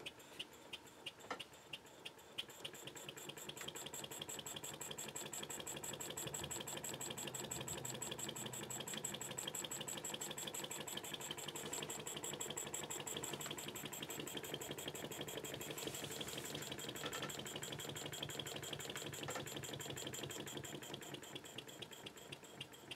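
Inverted wig-wag model steam engine running on compressed air, ticking in an even rhythm. It starts at about two to three beats a second, speeds up to a fast, dense beat about two seconds in, and slows back to separate ticks near the end.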